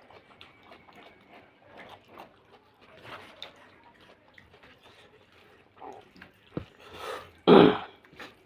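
Wet eating sounds of fish curry and rice: soft squelching and small smacking clicks. Near the end there is a loud, short noisy sound.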